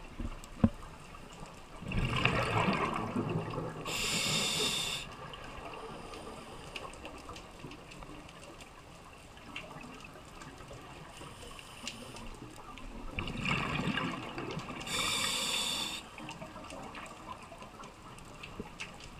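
A diver's air heard underwater: a bubbling rush followed by a high hiss, twice, about eleven seconds apart. It is typical of breathing out through a regulator and then drawing in air. A single sharp click comes early.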